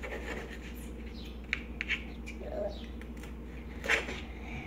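Kitchen knife cutting nopal cactus paddles on a cutting board: a few sharp taps of the blade through the pad onto the board, the loudest just before the end.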